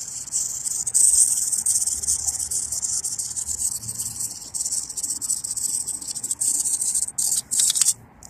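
Spring-wound clockwork of a small plastic wind-up toy running: a rapid, raspy buzz of tiny gear ticks that breaks up and stops near the end.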